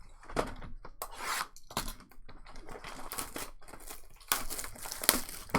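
Trading cards being handled and shuffled through: a run of dry rustling and sliding swishes, with a sharper snap near the end.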